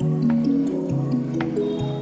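Background music: a melody of held notes stepping over a bass line, with light ticking percussion.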